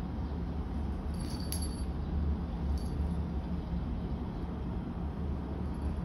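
A small collar bell on a grooming cat tinkles briefly twice, about a second and a half in and again near three seconds, over a steady low background rumble.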